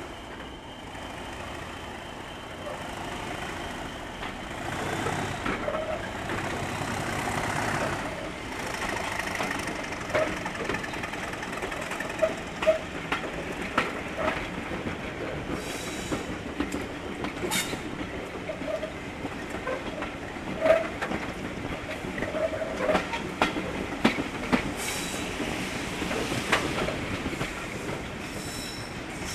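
Passenger train hauled by a Class 37 diesel locomotive pulling away and running along the line, heard from a carriage window. The running noise builds over the first several seconds, then wheels click over rail joints with short squeals on the curves.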